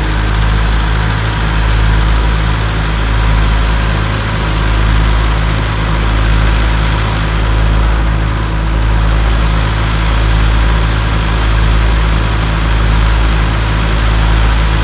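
Belarus 510 tractor's diesel engine running at a steady speed under load, driving a wheat thresher through its PTO shaft. The thresher adds a steady rushing whir as wheat straw is fed in.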